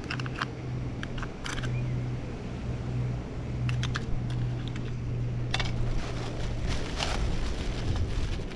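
Small camping gas stove burning with a steady low hum, with scattered sharp clicks and short rustles of cookware and packaging being handled, busiest near the end.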